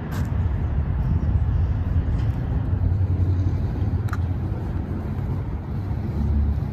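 Car driving past on the nearby road, a low engine and exhaust rumble that builds over the first few seconds and swells again near the end.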